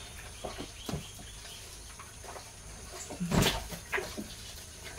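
Light knocks and rustles of a tether rope being handled at a post, with one louder sudden sound about three and a half seconds in.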